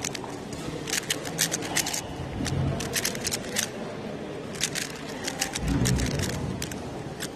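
Rapid clicking of a stickerless 3x3 speedcube's layers being turned by hand, in quick irregular runs of clicks. Twice a low, muffled rumble rises beneath it, around the middle and again about six seconds in.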